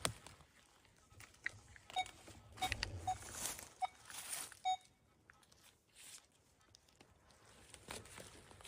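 Metal detector giving several short, clipped beeps over a couple of seconds, over crunching and rustling in dry leaf litter.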